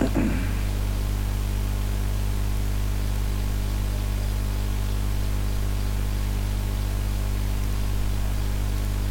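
Steady electrical hum with hiss from the recording's microphone line: a low buzz with several overtones and an even hiss, unchanging throughout.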